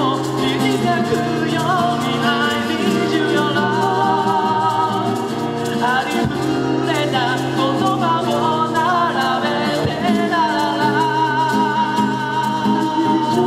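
A live acoustic band playing a song, with a man singing over acoustic guitar strumming and melodica.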